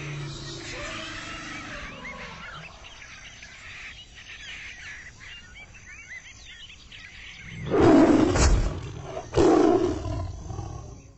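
Jungle ambience with many short chirps, then an animal roaring loudly twice, the first roar about eight seconds in and the second about a second and a half later.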